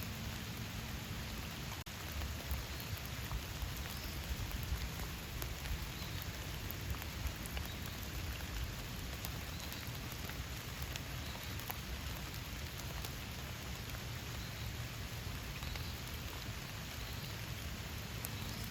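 Steady rain falling in a forest, with many single drops ticking through the even hiss.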